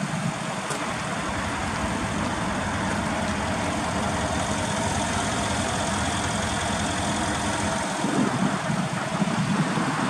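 Mercedes-Benz ML63 AMG's twin-turbo V8 idling steadily, with a faint steady whine over the engine note. From about eight seconds in, the low rumble turns uneven.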